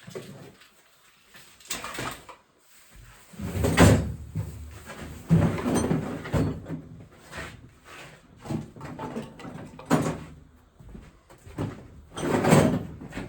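Irregular clunks, knocks and scrapes of parts and tools being handled while an NV4500 five-speed manual transmission is taken apart. The loudest knocks come about four seconds in and near the end.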